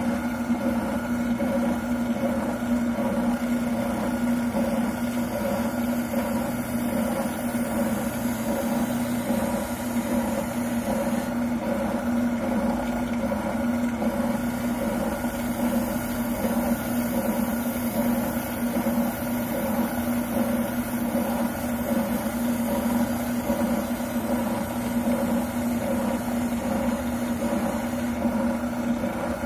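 Wilton oscillating sander running with a steady motor hum while a shotgun buttplate is sanded down to fit the stock.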